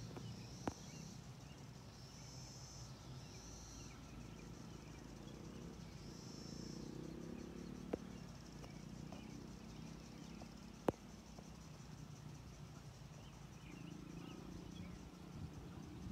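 Faint outdoor evening ambience: insects buzzing in bursts that come and go every second or two, over a low rumble, with a few sharp clicks.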